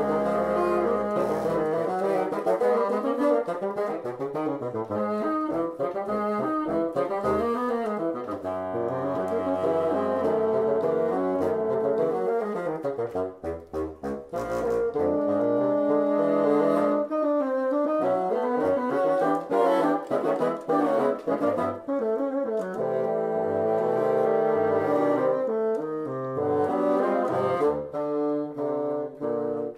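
A bassoon quartet plays a funky piece: four bassoons weave interlocking lines over a stepping bass line. About halfway through, the low line drops out briefly and the playing thins and dips in loudness before the full texture returns.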